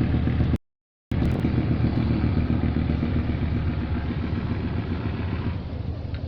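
Boat's diesel engine running steadily with a low, even hum. About half a second in, the sound drops out completely for half a second, then resumes.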